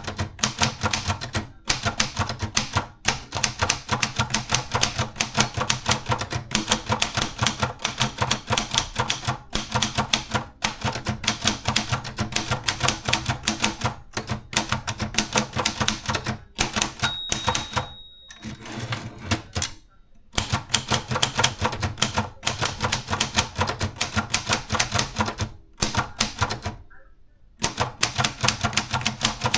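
Maritsa 30 portable typewriter being typed on: a fast, uneven run of key-strike clacks broken by a few short pauses, with a brief ringing tone once past the middle.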